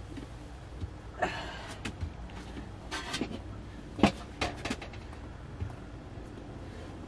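Scattered knocks and clatter of cooking pots and utensils being handled, about eight short hits with the sharpest one about four seconds in, over a steady low rumble.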